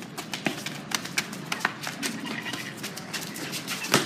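Footsteps of children running on pavement: a quick, irregular patter of sharp clicks, with one louder click near the end.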